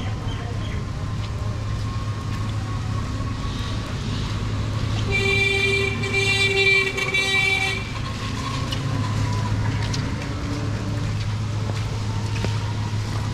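A vehicle horn sounds one long honk of about three seconds, starting about five seconds in, over steady low street noise.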